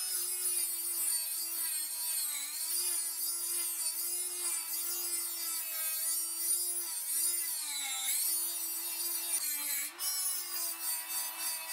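Handheld rotary tool running at high speed with a small sanding drum, grinding against a metal knife bolster. It gives a steady whine over a rasping hiss, and its pitch sags briefly a few times as the drum is pressed into the metal.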